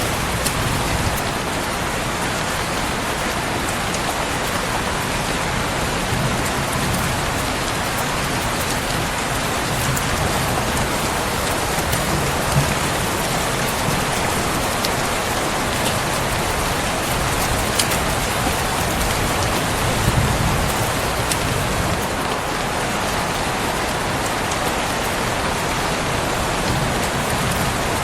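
Steady rain falling on a surface, a dense even hiss, with a few sharp ticks and soft low rumbles swelling now and then.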